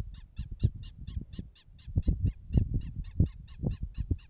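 A bird calling in a rapid, even series of short, high, downward-sweeping notes, about four to five a second, over irregular low thumps and rumbles.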